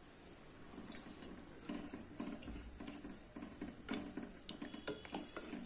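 Wooden spatula stirring thin tomato gravy in a pressure cooker pot: faint sloshing with soft, irregular knocks and scrapes against the pot, starting about a second and a half in.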